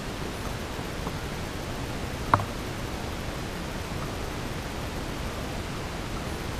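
Steady, even hiss with a single sharp drip of water plopping into the still pool about two seconds in, and a fainter one about a second in.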